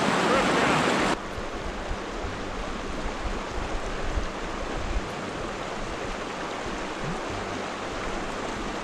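Small mountain creek running over rocks: a steady rush of water, louder for about the first second before dropping to a lower, even level.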